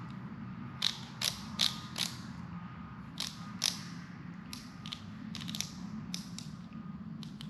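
A click-type torque wrench's handle being twisted to set it to 90 ft-lbs: about a dozen sharp, irregularly spaced clicks from the adjustment mechanism, over a low steady hum.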